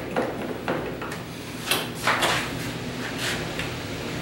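A series of knocks, clicks and rattles from a plastic hinge-pin door stop being adjusted by hand and an interior door being swung on its hinges; the loudest knocks come about two seconds in.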